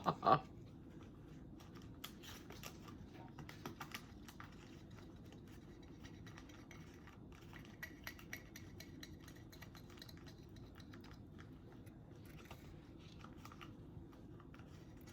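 Faint, scattered light taps and clicks of small craft supplies being handled (paint, brush, tape and the pot on the table), over a low steady room hum.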